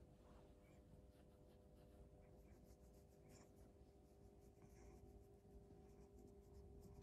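Near silence: faint scratchy rustling of fingers rubbing a cat's fur, over a low steady hum.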